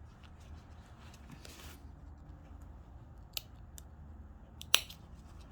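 A few small, sharp clicks and a brief rustle as a trouser zip is handled and worked on by hand. The loudest click comes near the end.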